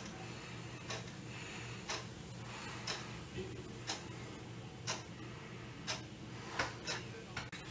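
Faint, steady ticking, about one tick a second, with a few louder clicks near the end.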